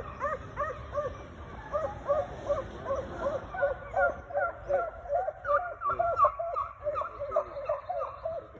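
A pack of Walker foxhounds baying on the run, several dogs overlapping in short, rising-and-falling barks at about three or four a second: the hounds are giving mouth on a hot track, chasing a coyote.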